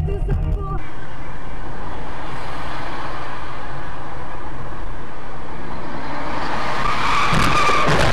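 Dashcam audio of a car driving in traffic: loud, steady road and wind noise. A squeal rises near the end.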